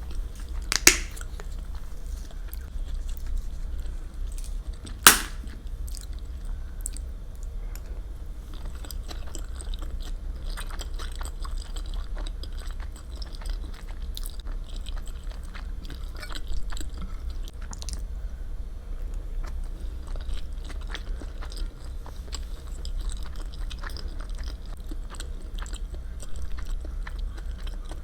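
Close-miked chewing of food, with small crunches and mouth clicks, over a steady low hum. Two sharp clicks stand out, one about a second in and one about five seconds in.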